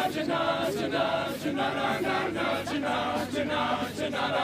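All-male a cappella group singing a wordless instrumental passage in close harmony, with vocal percussion keeping a steady beat.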